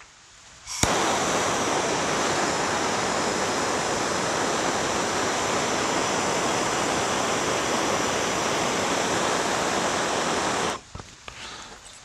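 Handheld gas torch on a yellow fuel cylinder, lit with a click about a second in, then burning with a steady loud hiss as it heats the blades of pruning shears to disinfect them; it is shut off shortly before the end.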